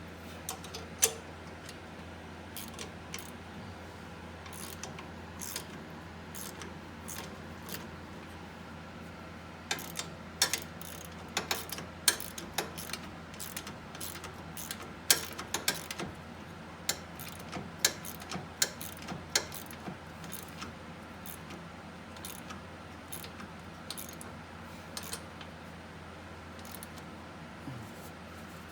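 Hand ratchet wrench clicking in short runs as the differential mounting bolts are run in and snugged, with the clicks busiest in the middle stretch.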